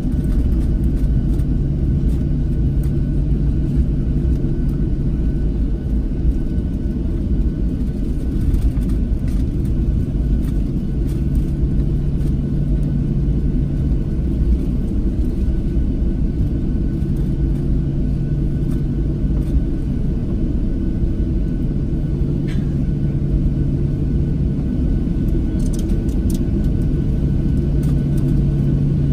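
Steady low rumble inside a Boeing 737-700 cabin as it taxis after landing, with a low hum that swells and fades every few seconds.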